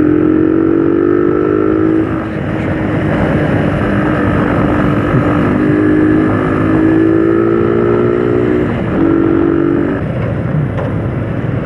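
Motorcycle engine running under way, its pitch climbing slowly as it accelerates and dropping sharply about two seconds in and again near nine seconds. Wind and road noise rush underneath.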